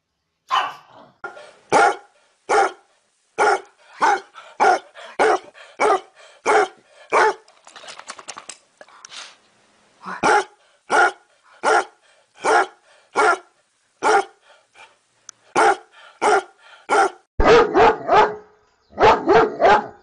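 Dog barking in a string of single loud barks, about one and a half a second. The barks break off briefly about eight seconds in, and come in quicker runs near the end.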